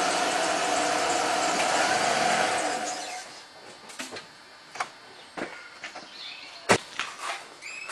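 A steady mechanical running noise with a hum, which fades away about three seconds in, followed by a few scattered clicks and one sharp knock.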